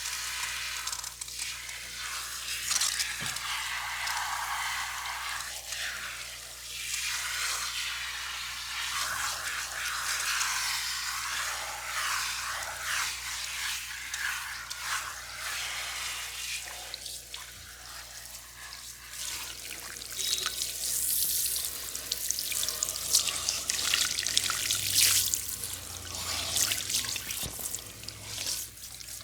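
Hands rubbing and scrubbing through hair and over the scalp during a head massage, a dense hissy rustle that becomes busier and faster, with quick sharp strokes, in the second half.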